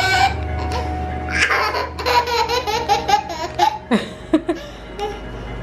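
Toddler laughing hysterically in repeated fits of giggles, with a few short, sharp sounds about four seconds in.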